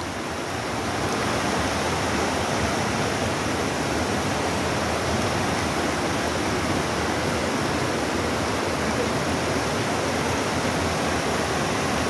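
A fast river rushing over rocks and boulders: a steady, even roar of water.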